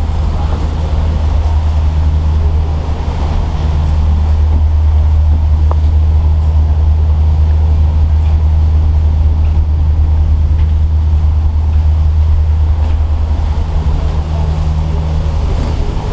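Loud, steady low rumble with a fainter hum above it that fades out midway and returns near the end.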